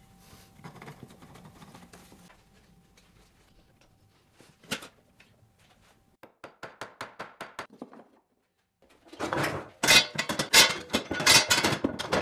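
Woodworking clamps being set and tightened during a glue-up. One sharp knock, then a quick run of small clicks, and near the end a loud clatter of metal clamps clacking and ratcheting along notched steel bars.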